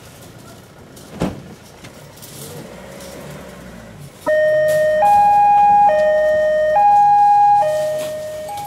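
A single thump about a second in. Then, about four seconds in, a Dutch police two-tone siren starts up, alternating a low and a high note roughly every 0.8 seconds, and fades away toward the end.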